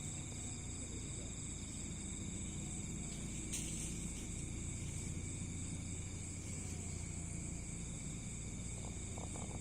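Steady chorus of insects: several constant high-pitched trills held without a break over a low steady rumble, with one short click about three and a half seconds in.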